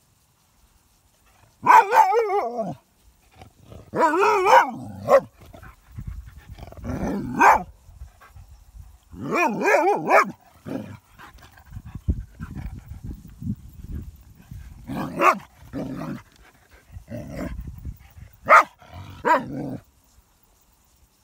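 Dog barking in repeated outbursts, some calls drawn out and wavering in pitch, at a hedgehog curled into a defensive ball. A low scuffling noise fills a gap in the middle.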